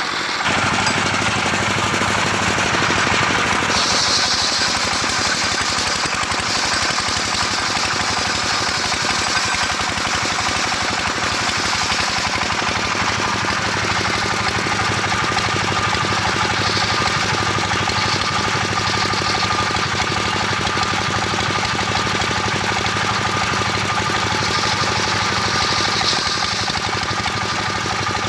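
Engine-driven circular sawmill running steadily with a rapid, even chugging, sawing a mango log into boards. A higher hiss from the cut swells and fades several times.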